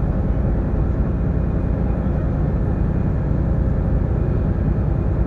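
Steady low rumble of the sightseeing boat Susquehanna under way, its engine running as it moves through the harbour water.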